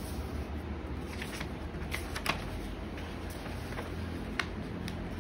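Paper rustling and crinkling as large folded posters are unfolded and handled by hand, with a few short sharp crackles around two seconds in and another near the end, over a steady low hum.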